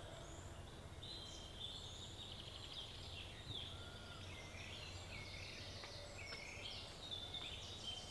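Woodland birdsong: several small songbirds singing at once, a run of quick high chirps and rapid trills, over a faint steady low rumble.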